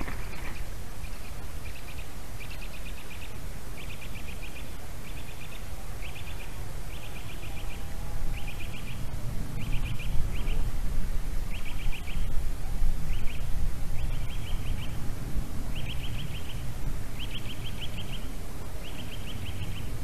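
Male white-tailed eagle calling over and over: runs of quick, high yelping notes, each run about half a second long, repeated roughly once a second. A low rumble runs underneath, swelling in the middle.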